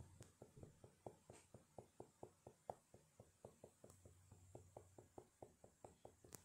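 Faint, quick, regular tapping, between four and five taps a second, with a sharper click near the end.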